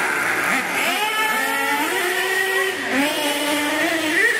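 Radio-controlled cars' motors whining, their pitch rising and falling several times as the cars speed up and slow down.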